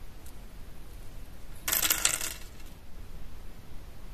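A handful of short, thin copper wire pins clinking together in a brief jingling burst, a little under a second long, about two seconds in.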